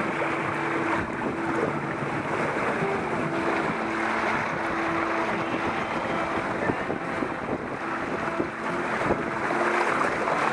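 Wind buffeting the microphone and water rushing along the hull of a sailing trimaran under way, with faint held notes of background music.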